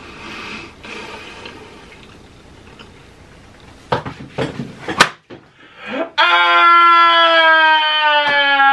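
A man wailing loudly as if crying: one long held cry that starts about six seconds in and slowly falls in pitch. A few short, sharp sounds come just before it.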